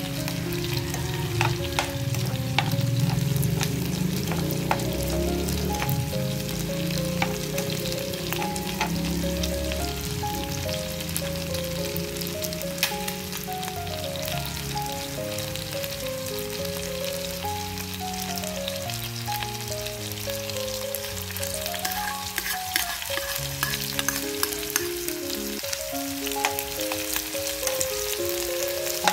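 Minced garlic and chicken sizzling in hot oil in a wok, with a steady crackle and frequent small pops, and a spoon stirring near the end. A melody of background music plays under it.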